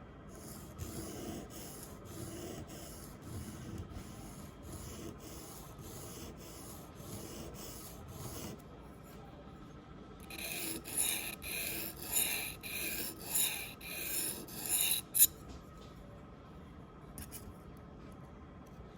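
A dental curette scraped in rhythmic strokes against a sharpening stone, about two strokes a second. The strokes are louder from about ten seconds in, with a sharp click near fifteen seconds, then fade to faint rubbing.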